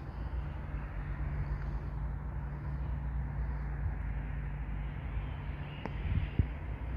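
Steady road traffic noise: a continuous rumble and hiss of passing vehicles with a constant low hum, and a couple of sharp clicks about six seconds in.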